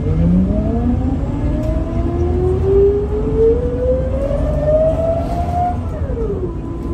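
Scania L94UB city bus accelerating, heard inside the passenger cabin: its engine and automatic-gearbox whine climbs steadily in pitch for about six seconds. Then the pitch drops sharply as the gearbox shifts up, and the climb starts again.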